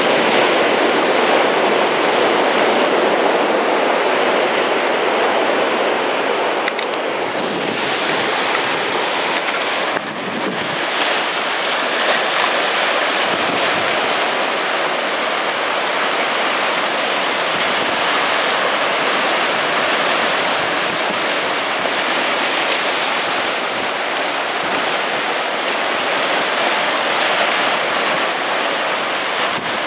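Rough sea surf breaking and washing over rocks, a steady rushing wash with a brief break about ten seconds in.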